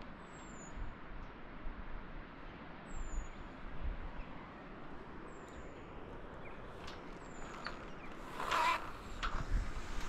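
A bird's short, high, falling whistle, repeated four times about two seconds apart, over steady outdoor noise with low wind rumble on the microphone. Near the end come a few louder short knocks.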